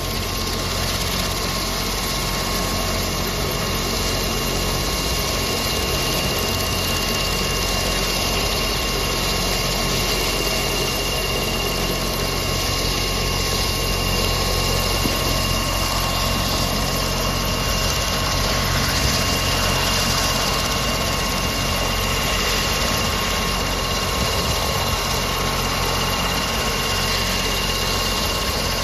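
Leonardo AW109SP helicopter running on the pad with its rotors turning: a steady high-pitched whine from its twin turboshaft engines over constant low rotor noise.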